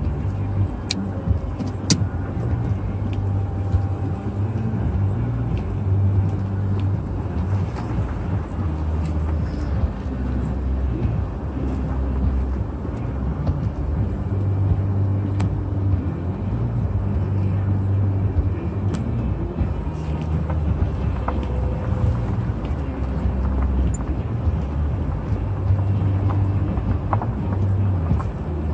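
Car driving slowly, a steady low engine and road rumble heard from inside the car, with a few faint clicks.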